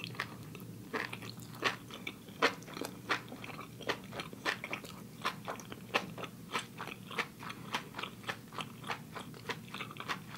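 A person chewing a mouthful of food, with short crunching clicks at a steady pace of about three a second.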